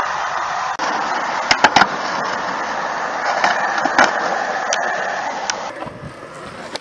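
Skateboard wheels rolling on smooth concrete, a steady rolling noise, with a few sharp clacks of the board: a quick cluster about a second and a half in and single ones around four and five seconds. Near the end the sound drops quieter.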